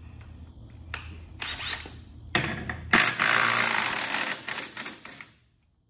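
A few sharp metallic clicks, then a power tool runs in one loud burst of about two seconds and stops suddenly, used to take the wheels off a car.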